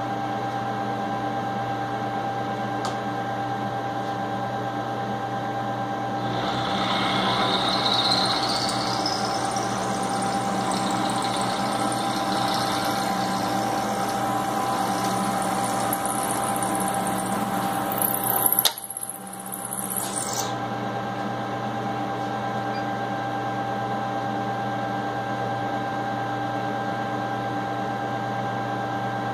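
Milling machine running steadily while its end mill cuts a miter into a metal jaw block. The cutting noise sets in about six seconds in, with a rising high whine at first. It stops with a sharp click about two-thirds of the way through, and the machine then runs on alone.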